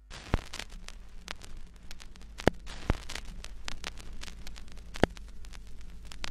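Crackling static: a steady hiss with a low hum under it, broken by irregular pops and clicks, four of them sharp and loud, like the surface noise of an old record or worn film soundtrack.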